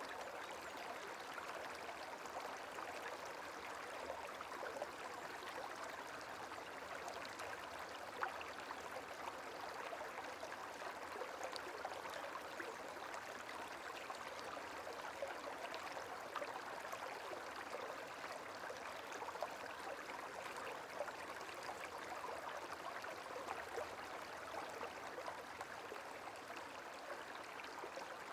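Gently running water, a steady soft trickling and babbling like a small stream, with faint scattered droplet ticks.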